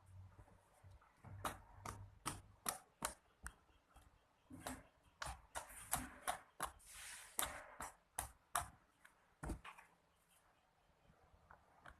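Slime being squeezed and stretched by hand, giving irregular sharp pops and crackles, with a longer crackling stretch about halfway through.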